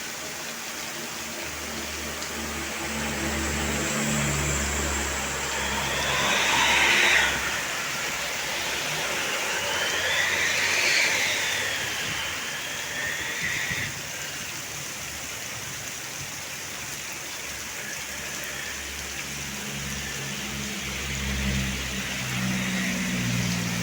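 Road traffic passing close by: engine rumble and tyre noise swelling and fading, with two louder passes about 7 and 11 seconds in.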